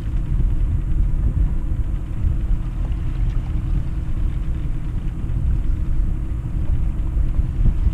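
A sailing yacht's inboard engine running steadily under way, heard as an even low rumble.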